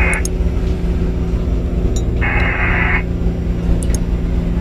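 Steady low drone of a longline fishing vessel's engine, with two short bursts of hiss, one cutting off just after the start and another about two seconds in.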